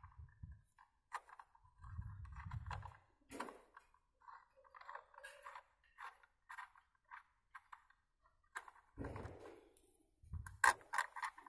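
Scattered light metallic clicks and clinks, with a few soft handling bumps, as a car door's lock striker and tools are handled after the striker has been unscrewed.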